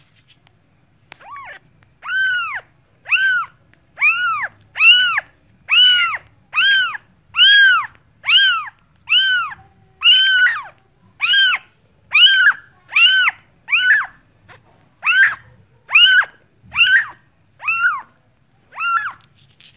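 A cat meowing over and over: a steady series of about twenty short, high-pitched mews, roughly one a second, each rising then falling in pitch. The calls begin about a second in.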